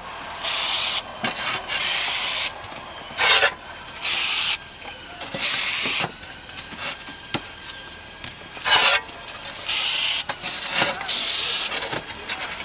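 Roof-tile foam adhesive spurting from a foam gun onto clay cover tiles in about six short hissing squirts, each half a second to a second long. Between them, clay tiles scrape and click as they are set.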